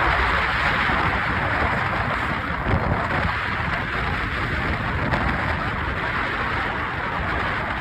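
Steady rushing noise of an aerial tram car riding down its cable, mixed with wind, easing slightly over the stretch.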